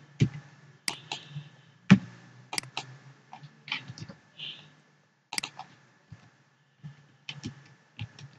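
Typing on a computer keyboard: a dozen or so irregular keystrokes and clicks, over a faint steady hum.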